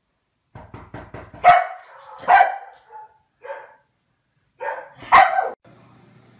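A Komondor barking about five times, a few seconds apart, the first two and the last the loudest, after a few quick light taps.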